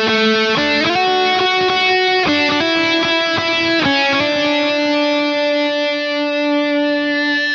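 Electric guitar music: a slow melody of held notes that slide from one pitch to the next, settling into one long held note about four seconds in.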